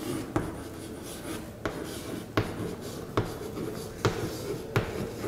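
Chalk writing on a chalkboard: scratchy strokes broken by sharp taps each time the chalk strikes the board, about once a second.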